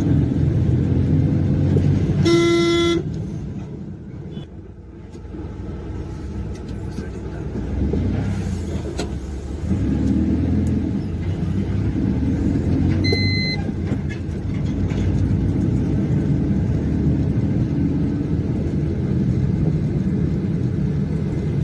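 Goods truck's engine and road noise while driving, with one short horn blast about two seconds in and a shorter, higher-pitched beep about thirteen seconds in. The engine noise drops for a few seconds after the first horn, then picks up again.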